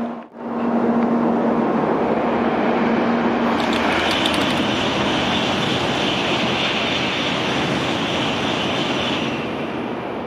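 N700A Nozomi shinkansen passing through the station at speed: a loud, continuous rushing noise. A steady low hum sounds under it at first, and a higher hiss joins with a few clicks about three and a half seconds in, fading near the end.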